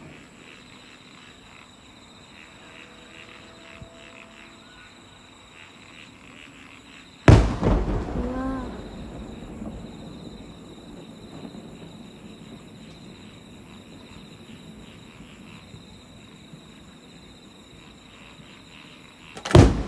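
Two aerial firework shells bursting, one about seven seconds in with a rumbling echo that dies away over a couple of seconds, and another near the end. Crickets chirp steadily beneath.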